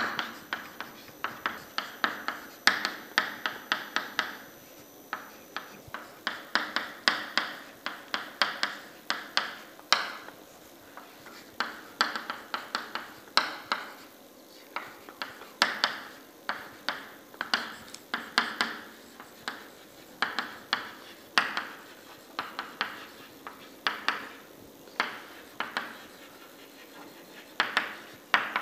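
Chalk writing on a chalkboard: quick runs of sharp taps with each stroke, broken by brief pauses.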